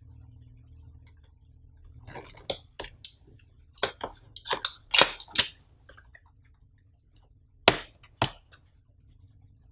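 Cardboard retail box being worked open at its end flap: a cluster of sharp snaps and crackles of paperboard through the middle, then two more sharp snaps about half a second apart near the end.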